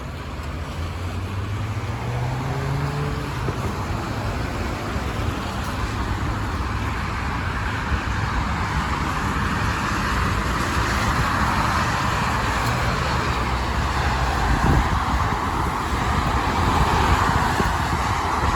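Steady highway traffic: cars and trucks passing with tyres hissing on rain-wet pavement over a low engine rumble, growing louder in the second half. About two seconds in, one vehicle's engine rises in pitch as it speeds up.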